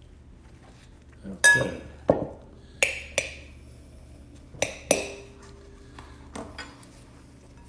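A metal spoon knocking against a glass mixing bowl as mashed sweet potato is scraped off into it: sharp, ringing clinks, three loud pairs followed by two lighter taps near the end.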